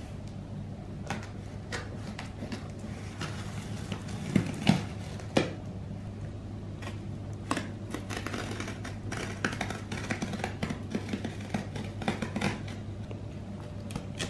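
Knife blade slicing and scraping along packing tape on a cardboard box, with many short scrapes and clicks and three louder knocks on the cardboard about four to five seconds in. A steady low hum runs underneath.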